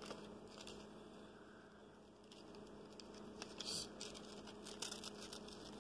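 Faint rustling and crinkling of a sheer gift bag and small plastic packaging being handled and opened by hand, loudest in a few brief rustles about three and a half and five seconds in, over a low steady hum.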